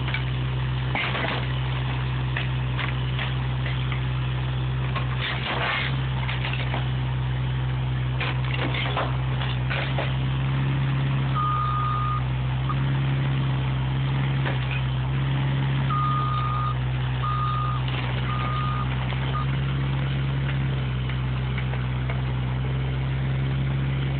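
Bobcat E32 mini excavator's diesel engine running steadily, with crunching and cracking as its bucket tears into the wooden pavilion roof, mostly in the first half. A warning beeper sounds once about halfway, then in a string of short beeps a few seconds later.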